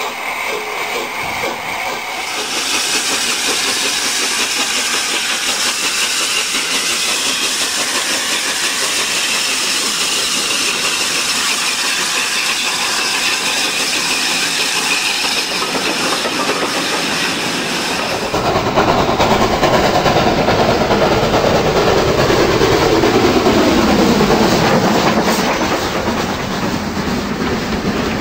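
Model trains running along the track close by: a steady rattling rumble of wheels on rail. About two-thirds in the sound turns heavier and deeper, with a tone that slowly falls in pitch.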